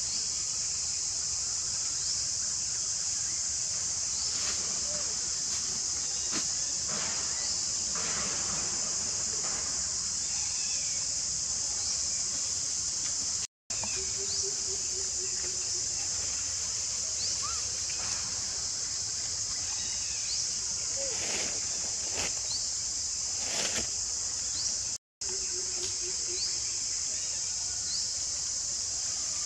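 Steady high-pitched insect chorus with faint short chirps every second or two and a few brief rustles of leaves. The sound cuts out completely twice for a moment.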